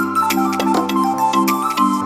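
Background music with a steady beat and a bright melody over chords.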